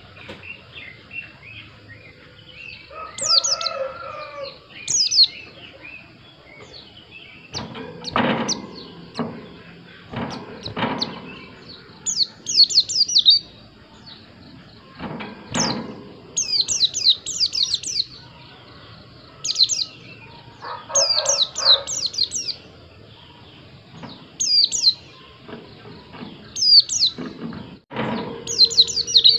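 White-eye (pleci) singing in short, rapid bursts of high twittering notes, repeated every second or two. Now and then a sharp knock sounds, and a lower, rougher call comes twice.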